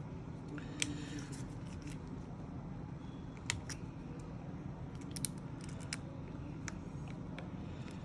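Small tools clicking and tapping on an iPhone XS as it is taken apart: scattered short, sharp clicks, a few close together around the middle, over a steady low hum.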